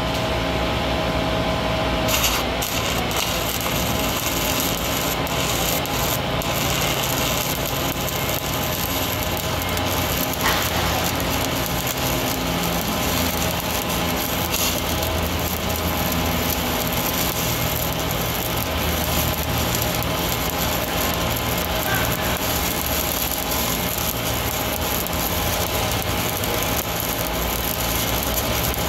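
Stick-welding arc on galvanized structural steel: it strikes about two seconds in, then a steady, even crackle holds as the rod burns overhead. A steady engine drone runs underneath.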